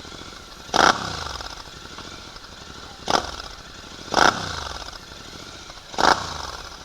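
Royal Enfield Continental GT 650's 648 cc parallel-twin engine through a Red Rooster aftermarket exhaust with the dB killer fitted, idling and blipped four times, each rev dropping quickly back to idle.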